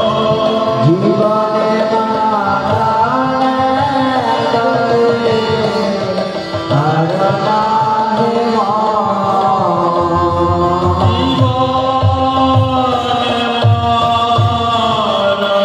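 Devotional Radha-Krishna kirtan: a man singing a gliding melody over steady held accompaniment, with a hand drum keeping the beat.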